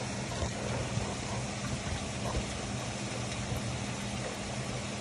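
Heavy rain falling steadily, an even hiss with a few soft taps, over a steady low hum.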